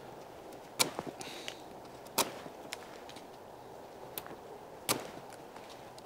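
A Mora Bushcraft Black knife carving a wooden stick: three sharp cracks, about a second in, at two seconds and near five seconds, as the blade bites and shavings snap off, with lighter ticks between.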